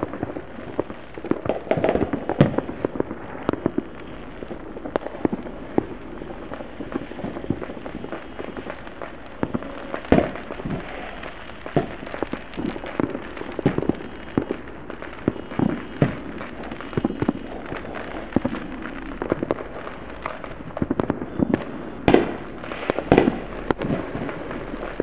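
Many fireworks and firecrackers going off at a distance across a town: irregular pops and bangs over a constant crackle. A few sharper bangs stand out, one about ten seconds in and another near the end.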